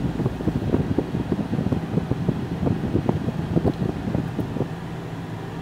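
Cabin sound of a 2011 Scion xB pulling away at low speed. The four-cylinder engine and the ventilation fan make a steady low hum, with frequent irregular low thumps and rumbles over it.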